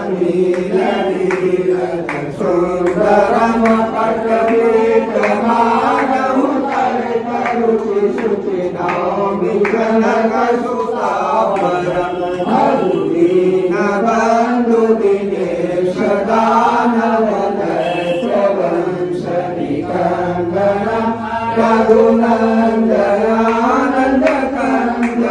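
Group of voices singing a Hindu devotional hymn (aarti) together in a slow, held chant, with hands clapping along.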